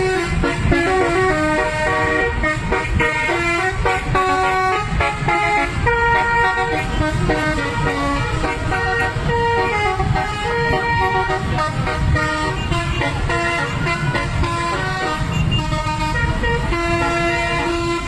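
Bus telolet horn: a set of air horns played as a tune of short and held notes that keep changing pitch, over low engine and traffic rumble.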